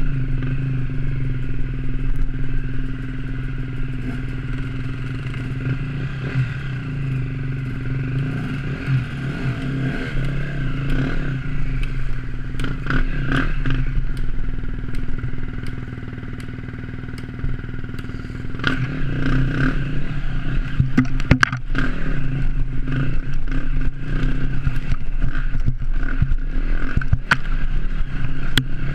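Enduro dirt bike engine running under load while riding a rough snowy trail, easing off a little past halfway, then opening up again. Short knocks and clatter from the bike over the bumps, more of them in the second half.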